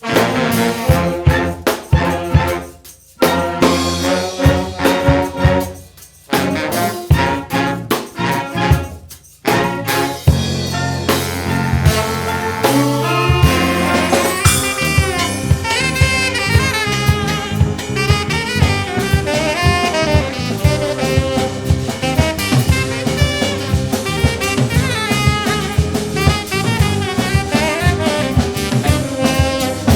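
Brass band music: trombones, trumpets and saxophones over a drum kit. The first ten seconds come in short phrases broken by three brief stops, then the band plays on continuously over a steady beat.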